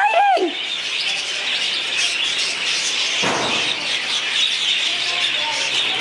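A flock of budgerigars chattering and chirping continuously in a dense, high twitter. A brief rushing noise comes about three seconds in.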